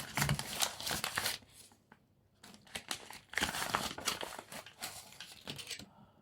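Packaging crinkling and tearing as a parcel is handled and opened by hand, in two bouts with a short pause about two seconds in.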